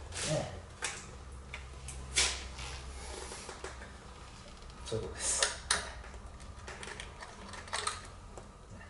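Scattered light clicks and knocks of hands fitting parts at a motorcycle's carburetor, several in a quick cluster around the middle, over a low steady hum.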